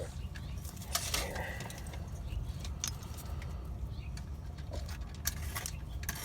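Scattered small metallic clicks and clinks of wire connectors and tools being handled while a replacement motor capacitor is wired in, over a steady low rumble.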